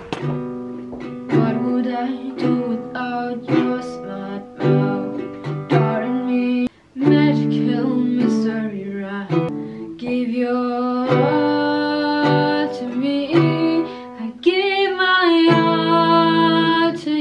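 Music: an acoustic guitar strumming chords with a voice singing along. There is a brief break about seven seconds in.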